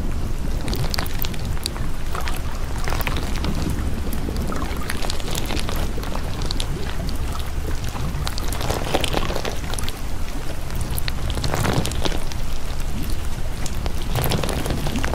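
Steady rain falling, a dense patter of drops with a low rumble beneath.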